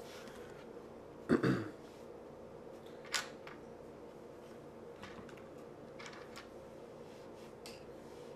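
A few light clicks and taps of small parts being handled on a laptop's screen assembly while its bezel screws are being reinstalled. The clearest is a sharp click about three seconds in, with fainter ones later, over a faint steady hum.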